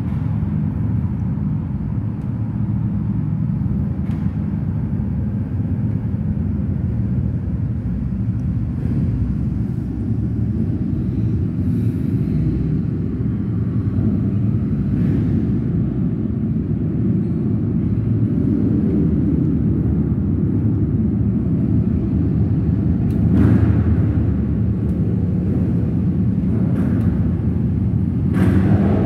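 A group of motorcycle engines idling and pulling away one after another, a steady low rumble that slowly builds, with two brief louder swells near the end as bikes accelerate off.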